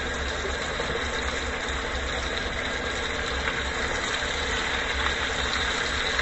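Steady sizzling of a rib-eye steak frying in butter in a skillet, over a low steady hum.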